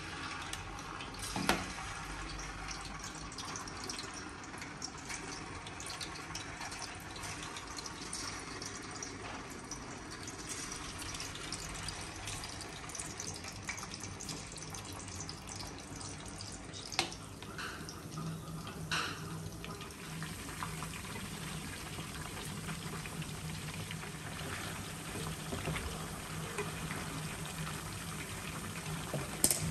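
Chicken-and-potato pieces deep-frying in oil in an aluminium kadai: a steady sizzling and bubbling, with a few sharp knocks against the pan.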